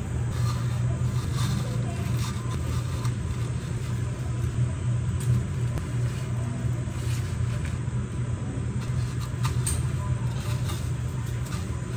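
A steady low hum throughout, with faint scattered ticks and rustles from hands pressing breadcrumbs onto egg-dipped chicken.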